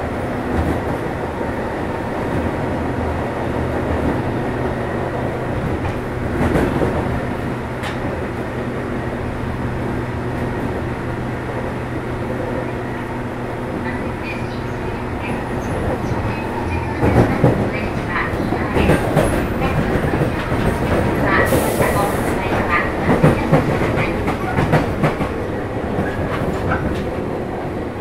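JR 201 series electric train running, its traction motors giving a steady low hum over the rumble of wheels on rail. From a little past halfway, a rapid run of clattering and brief wheel squeals sets in, as over rail joints or points.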